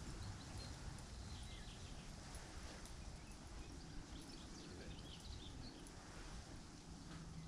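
Outdoor ambience: a steady low rumble of wind on the microphone, with faint, short, high bird chirps now and then.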